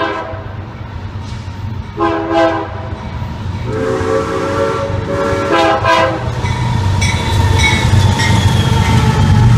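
BNSF freight train's locomotive horn sounding as it approaches: a blast ending right at the start, then a short blast, a long blast and another short one. Under and after the horn, the rumble of the diesel locomotives and their wheels grows steadily louder as they pass close by.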